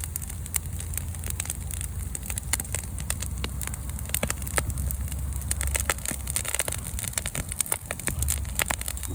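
Wood bonfire crackling, with many irregular sharp pops and snaps, over a steady low rumble.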